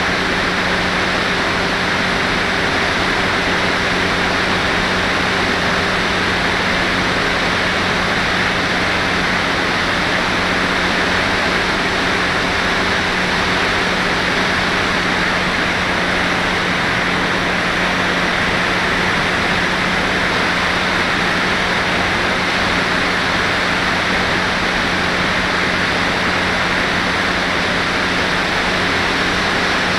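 Steady rushing wind noise of air streaming past an FPV model glider's onboard camera in flight, with a faint steady low hum underneath.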